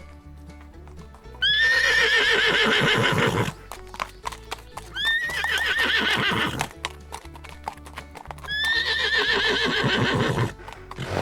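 A horse whinnying three times, each call about two seconds long with a rising then wavering pitch, with hoofbeats clip-clopping between the calls. Background music plays underneath.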